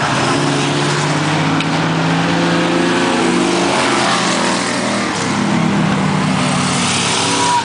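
Several V8 stock cars running at racing speed around an oval track, their engines blending together, with one car passing close about four seconds in, its engine note dropping as it goes by.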